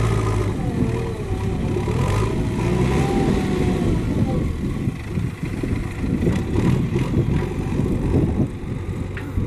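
Motor vehicle engine running close by. Its steady idling hum gives way about half a second in to a rougher, uneven running.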